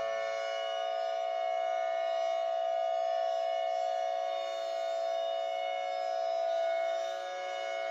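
Civil defense siren tone held at a steady pitch, reworked with studio effects so it rings like a drawn-out organ chord. Its loudness dips briefly near the end.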